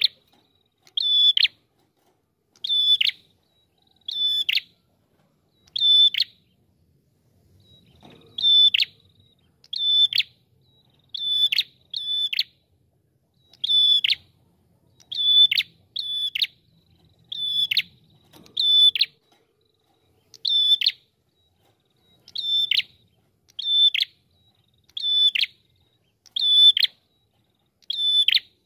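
Prenjak kepala merah, a small grey songbird with a rufous head, calling over and over: a short high note that drops sharply in pitch, repeated about every second and a half, sometimes two close together.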